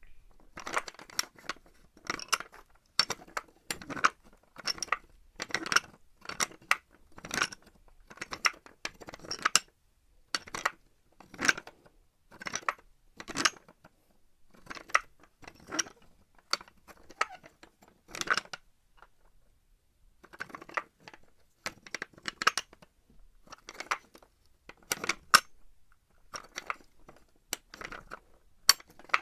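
Small metal pulley working in short bursts of sharp metallic clicks and clatter, about one burst a second, with a pause about two-thirds of the way through.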